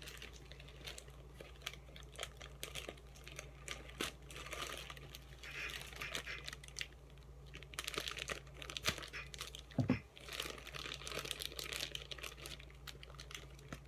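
Plastic mailer bag crinkling and rustling with many small crackles as it is handled and torn open by hand. A single dull thump comes about ten seconds in.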